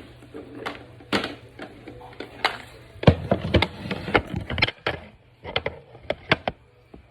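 Close-up eating sounds from boiled saba bananas: a string of irregular wet clicks and smacks from chewing and mouth movements, busiest and loudest in the middle, thinning out near the end.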